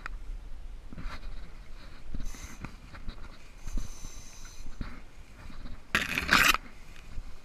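Tall grass and weeds rustling and swishing as someone wades through them on foot, with scattered crackles. About six seconds in, a louder, brief scrape as a grass stem drags across the camera.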